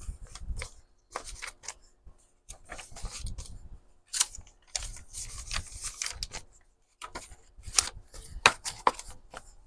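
Sheets of paper being handled and shuffled into stacks: bursts of rustling with short pauses between, and a few sharp ticks near the end.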